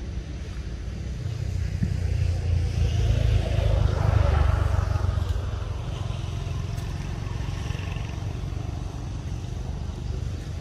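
A motor vehicle passing: its sound swells to a peak about four seconds in and then fades, over a steady low rumble.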